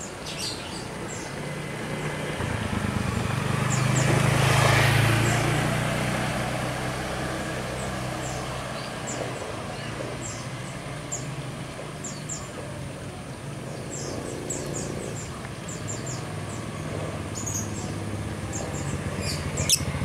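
A motor vehicle passes: its engine noise swells to a peak about four to five seconds in and then fades into a low, steady hum. Short, high bird chirps are scattered throughout, thickest in the second half.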